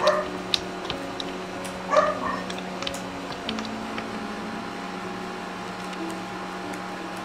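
Scattered light clicks of a laptop keyboard over a steady low hum with held tones. There is a brief louder sound at the start and another about two seconds in.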